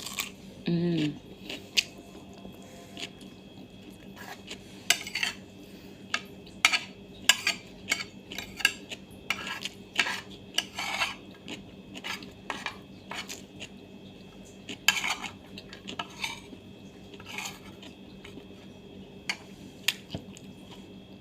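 Spoon and fork clinking and scraping against a plate while eating, in irregular taps and short scrapes, over a faint steady hum.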